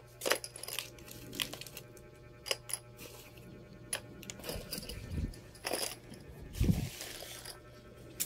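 Small nail-gun pins clicking and rattling as they are picked from their carton and set down on cardboard: a scatter of separate light taps, with two soft thumps around five and near seven seconds.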